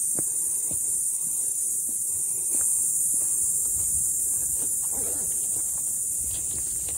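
Steady high-pitched drone of an insect chorus, with scattered light clicks and a few soft thumps.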